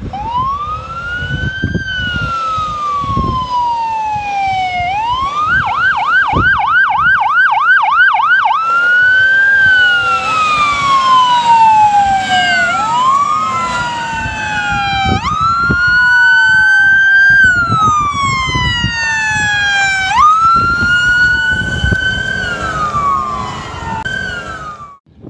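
Fire truck sirens on a code 3 response. Slow rising and falling wails are broken about five seconds in by a few seconds of rapid yelp, about three cycles a second, and then go back to wailing. In the second half a second siren sweeps out of step with the first, over the rumble of the trucks' engines.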